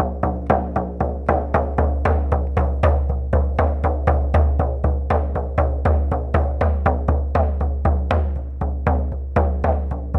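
Shamanic frame drum beaten in a steady, even trance rhythm of about four strikes a second, each stroke low and ringing.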